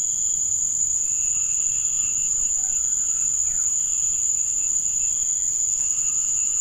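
Steady, shrill drone of an insect chorus, with a fainter wavering tone lower down beneath it.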